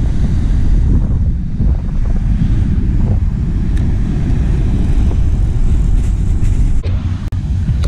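Wind buffeting the microphone: a heavy, steady low rumble that wavers with the gusts, dipping briefly a couple of times near the end.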